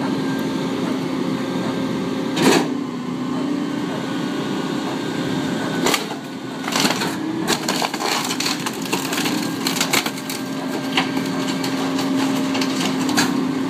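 Rear-loading garbage truck's hydraulic packer compacting a sofa: the engine runs at raised revs with a steady hum while the sofa's frame cracks and snaps again and again as the blade crushes it.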